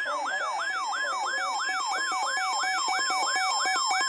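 Electronic siren-style alert tone, sweeping up and down about four times a second, with a steady tone sounding alongside it from about a second in; it is the alarm announcing an incoming severe-weather warning.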